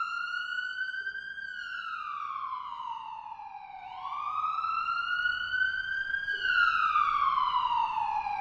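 Emergency vehicle siren wailing, its pitch sweeping slowly up and down in long rising and falling glides, a full cycle about every five seconds, growing louder in the second half.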